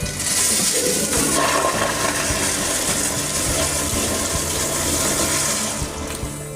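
Corona Adriatic toilet flushing on a flushometer valve: a loud rush of water that starts at once, runs about six seconds, then tapers off.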